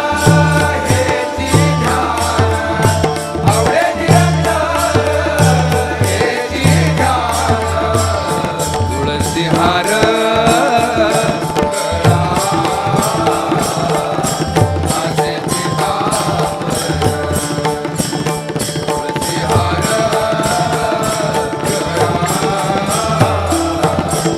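Instrumental interlude of a Marathi devotional abhang: a steady hand-drum rhythm with a wavering melody line over it, between sung verses.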